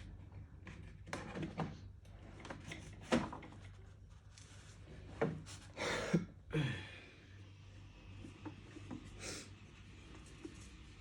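Knocks and clicks of the electric kettle's parts and tools being handled during a repair, half a dozen short sounds, most of them in the first seven seconds, over a low steady hum.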